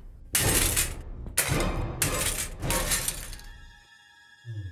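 A Breville sandwich toaster being smashed apart with a golf club: three heavy blows within about two seconds, with plastic cracking and shattering. A held musical tone follows near the end.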